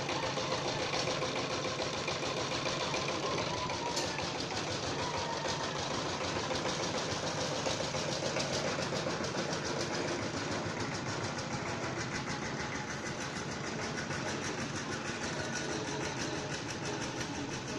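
A small engine running steadily, with a fast, even knocking beat.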